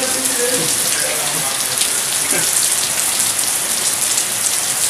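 Steady rain falling on a shelter roof and the paving, with water dripping off the roof edge in fine scattered ticks.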